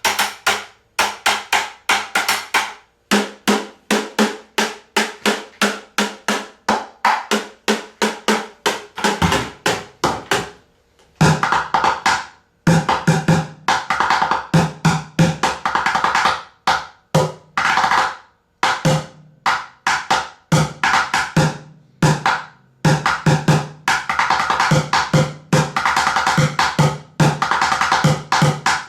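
Bucket drumming: rapid, rhythmic strikes on a bucket. A little past a third of the way in the playing breaks off briefly, then resumes with low thuds from the centre of the bucket mixed in among higher, sharper hits such as rim shots.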